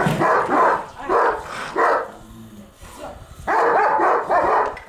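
Large Kurdish livestock guardian dogs barking and snarling as they fight: a run of four short barks in the first two seconds, a lull, then a longer burst of barking near the end.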